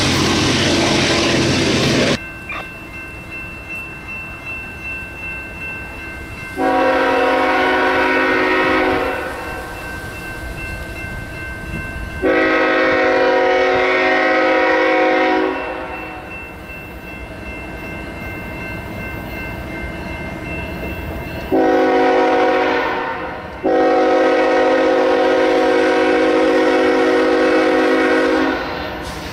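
BNSF freight locomotive's air horn sounding the long, long, short, long grade-crossing signal as the train approaches, each blast a chord of several notes. Before it, a loud rumble cuts off about two seconds in.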